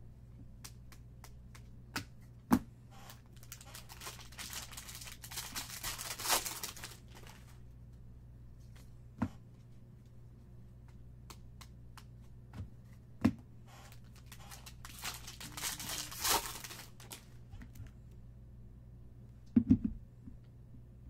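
Bowman baseball card packs being opened and cards handled: two stretches of crinkly wrapper tearing and rustling, a few sharp taps between them.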